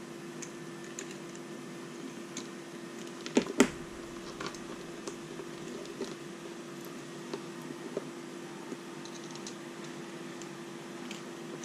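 Small plastic clicks and taps of 3D-printed gimbal parts and a servo being handled and pushed together, with one louder knock about three and a half seconds in, over a steady hum.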